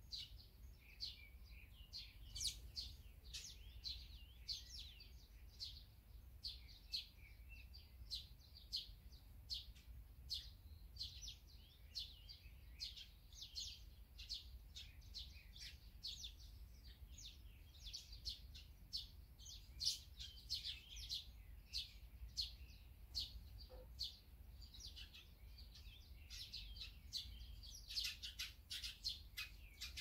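Small songbirds chirping: many quick, overlapping short chirps, growing busier near the end.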